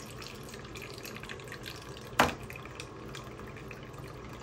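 Thin stream of cold water trickling from a plastic cup into a shallow plastic tray, with a single sharp knock about two seconds in.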